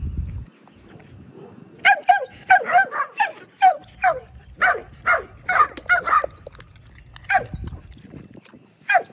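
A dog barking in a rapid string of short, high yips, each dropping in pitch, about two a second, starting about two seconds in and pausing briefly near the end.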